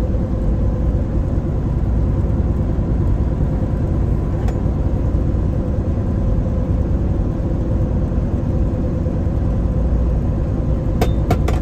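Steady drone of a Kenworth semi truck's engine and tyres at highway speed, heard inside the cab, with a faint steady hum over the rumble. A few sharp clicks near the end.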